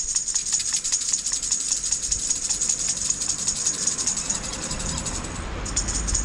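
A fast, even, high-pitched rattling, about seven pulses a second. Over the second half a low rumble builds, like a vehicle coming up the road.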